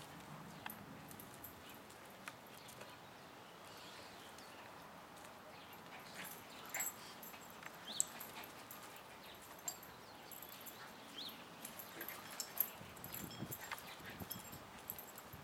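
Two small dogs, a Yorkshire terrier and a white curly-coated dog, play-fighting: paws scuffling and claws clicking on grit and paving, with a few low, faint growls.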